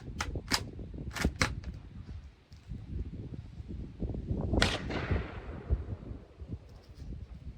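A Marlin 983S bolt-action rifle firing a single 22 WMR round, one sharp shot about four and a half seconds in with an echo that fades over a couple of seconds. It is preceded by a few short sharp clicks, and wind rumbles on the microphone throughout.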